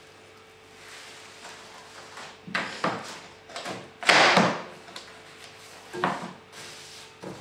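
Cling film crinkling as it is stretched over a glass bowl, then torn off against the serrated cutter of its dispenser box, the tear being the loudest sound about four seconds in. A knock about six seconds in as the box is set down on the table.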